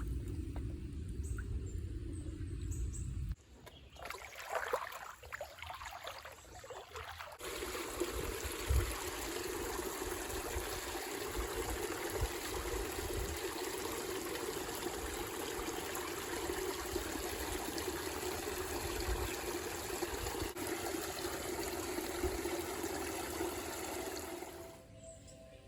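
Steady rushing of running water from a small stream, starting abruptly about seven seconds in and cutting off just before the end. A low rumble comes first, then a quieter patch of small irregular sounds.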